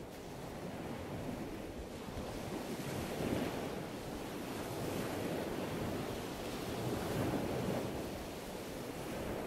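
Steady rushing background noise with no distinct events, swelling and ebbing slowly every few seconds.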